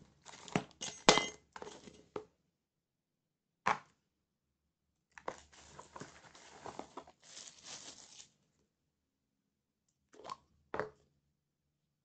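Handling noise from unboxing a mini spray gun: small parts clicking and knocking against a table in a quick cluster at the start, a single knock, then plastic packaging crinkling for about three seconds, and two more knocks near the end.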